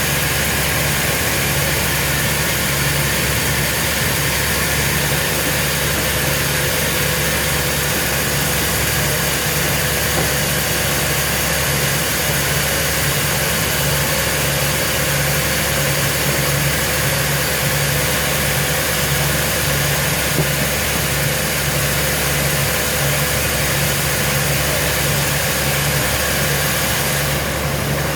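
Sawmill machinery running steadily: an engine-like hum with an even low pulse under a constant hiss, easing slightly near the end.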